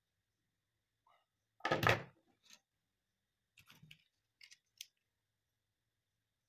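Metal hand tools (pliers) set down on a wooden workbench: one loud clatter about two seconds in, then a few lighter clicks and taps as tools are handled.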